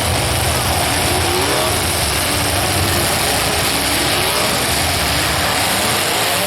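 Engines of several demolition derby cars running together, revving up and down over a steady loud wash of noise.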